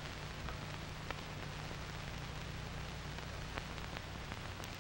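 Steady hiss and crackle of an old optical film soundtrack, with a low hum under it and a few faint clicks.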